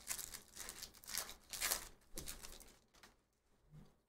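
Foil trading-card pack wrapper being torn open and crinkled by hand, a quick run of rustling tears over the first two seconds, then quieter handling.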